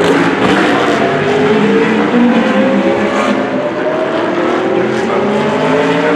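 GT3 race car engines running hard through a corner, more than one car at once, their pitch rising steadily over several seconds as they accelerate away.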